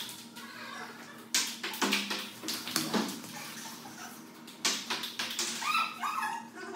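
Table tennis ball clicking off the paddles and the table during a rally, sharp taps at an uneven pace.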